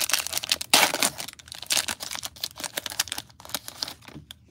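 Plastic wrapper of a trading-card pack being torn open and crinkled as the cards are pulled out: a run of irregular crackles and rustles, loudest about a second in.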